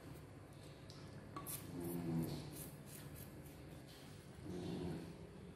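A puppy's soft, low growls, twice, over faint rustling and light clicks.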